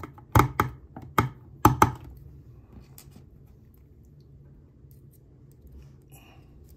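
Sharp clicks and taps of the water flosser's plastic handle being reassembled and its original screws put back in, about five in the first two seconds, then only faint handling.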